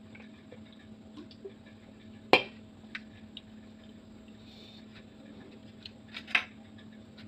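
Tableware knocks and clinks at a dining table: one sharp knock about two seconds in, a couple of light ticks just after, then a short cluster of clinks near the end as a hand works at the bowl and plate.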